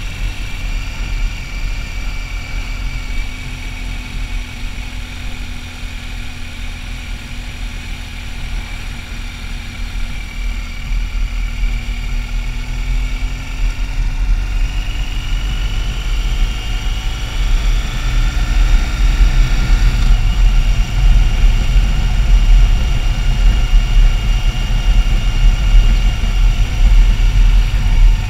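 Motorcycle engine running while riding, heard with heavy wind noise on the onboard microphone. About halfway through the engine pitch climbs steadily as the bike speeds up, and from about two-thirds of the way through the wind noise is louder.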